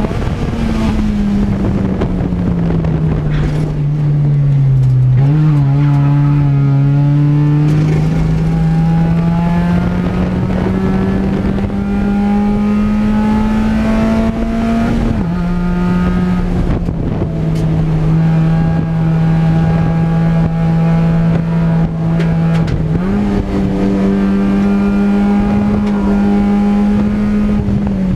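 Race car engine heard from inside the cockpit while lapping a track. The engine note drops at first, jumps with a downshift about five seconds in, then rises through a long pull. It shifts again about fifteen seconds in, once more about twenty-three seconds in, and near the end.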